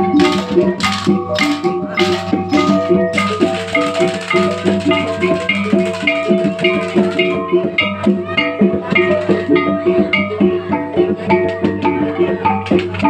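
Rhythmic percussion music: a repeating pattern of pitched struck notes over a drum beat. Sharp rattle strokes come about twice a second, then give way after about three seconds to lighter, quicker clicking.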